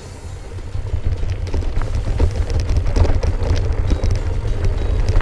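Wind rumbling on the microphone over the rattle and clicks of a mountain e-bike riding over a stony trail, growing louder about a second in.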